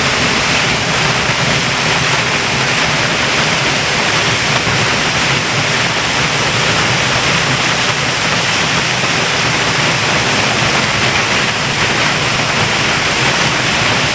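Eas Mor waterfall in spate after torrential overnight rain: a loud, steady rush of falling water with no break.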